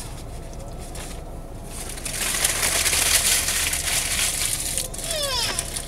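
Paper fast-food wrapper rustling and crinkling loudly for about three seconds as it is handled. Near the end comes a brief high squeal, falling in pitch, from a baby.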